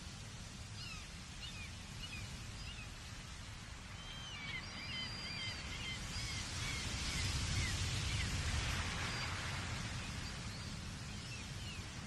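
Gulls giving quick, repeated high cries over the steady wash of distant ocean surf. The calls come thick in the first half and again briefly near the end, while the surf swells louder in the middle.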